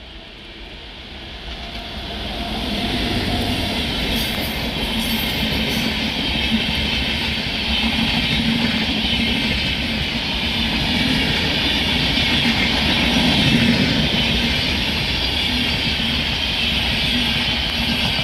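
Express passenger train hauled by a WAP-7 electric locomotive passing at speed: the locomotive goes by first, then the coaches, with steady wheel-on-rail noise. The noise swells about two seconds in, holds, and begins to ease near the end.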